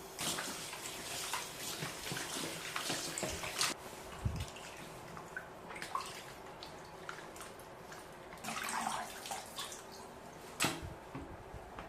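Water from a tap splashing in a sink in irregular bursts, as something is rinsed by hand.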